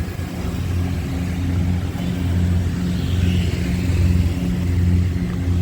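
Traffic on a busy city street, with a vehicle engine running close by as a steady low hum that swells and eases.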